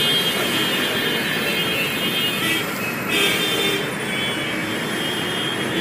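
Busy city street traffic at night: a steady wash of engines and tyres, with vehicle horns sounding on and off over it, one held for the first couple of seconds and another about three seconds in.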